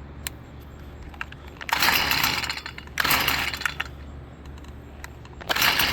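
Stihl string trimmer being pull-started: three rasping pulls of the recoil starter cord, each about a second long, with small clicks in between. The engine cranks but never catches, and the owner traces this to a flower that has grown into the muffler.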